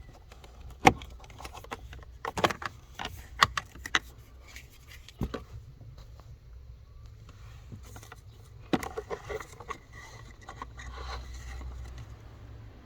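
Hands working on a car's cabin air filter compartment: a series of sharp clicks, knocks and rattles, loudest about a second in, with a low steady rumble underneath.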